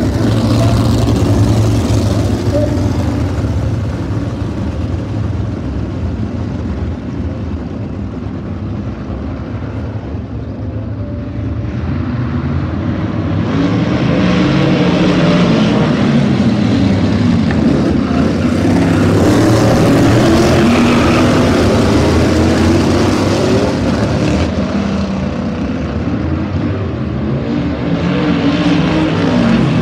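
A pack of winged sprint cars racing, their engines running hard with the pitch rising and falling as they lap the oval. The sound swells loudest from about halfway through, with several engines sweeping up and down at once.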